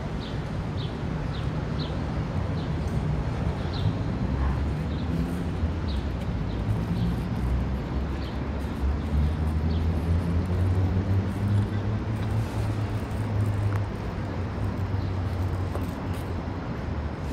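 Street traffic rumble, with a vehicle engine swelling louder through the middle and easing off again. Short high chirps, like a small bird, repeat about twice a second in the first half.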